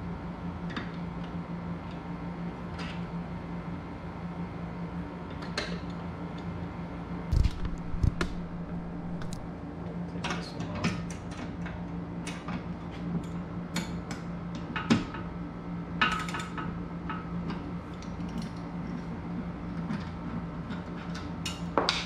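Scattered metal clinks and taps of bolts, washers and nuts being handled and fitted on a steel squat rack's bracket, with two heavier knocks about seven to eight seconds in, over a steady low hum.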